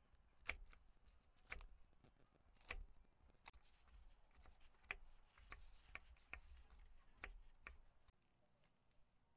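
Faint, irregular light clicks and taps, about a dozen, over near silence, dying away near the end.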